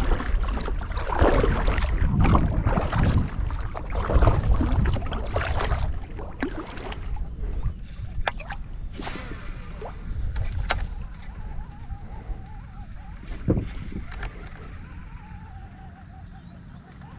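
Fishing kayak on the water: irregular sloshing and rumbling that is loudest for the first six seconds, then quieter, with a few sharp knocks.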